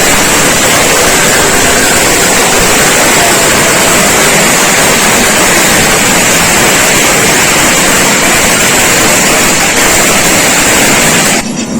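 Loud steady hissing rush with no rhythm or pitch, which cuts off suddenly near the end.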